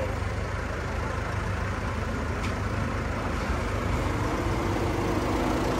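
A car engine idling steadily, a low even hum. A faint steady tone joins it about four seconds in.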